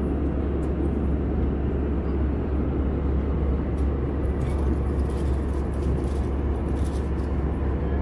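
Airbus A320 cabin noise in cruise: a steady low rumble with airflow hiss and a constant deep hum. A few faint clicks are heard about halfway through.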